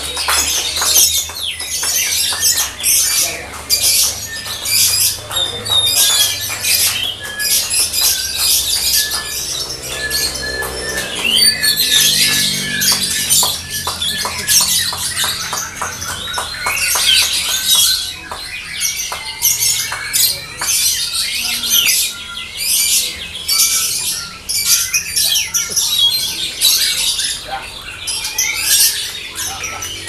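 Lovebirds singing: a fast, nearly unbroken stream of high-pitched chirps and trills, with several calls overlapping.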